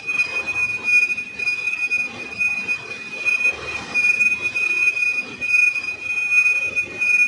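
A big lathe's cutting tool taking a cut along a large turning metal roller, giving a steady high-pitched squeal of tool on metal over uneven lower machine noise.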